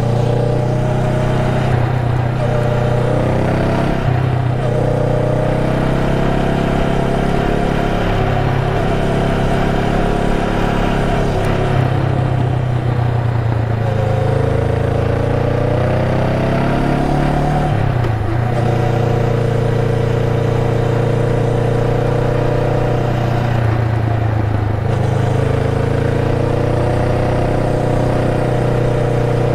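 Honda Rebel 500's parallel-twin engine running under way, its pitch climbing and then dropping back sharply several times as the bike accelerates and changes gear.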